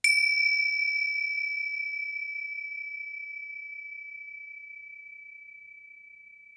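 A bell struck once: a single high, clear tone that starts suddenly and rings on, fading slowly over several seconds.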